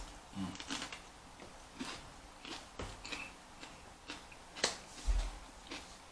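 Eating and handling a cream-cheese-stuffed jalapeño with Takis: scattered light clicks and crunches, with a dull bump near the start and another about five seconds in.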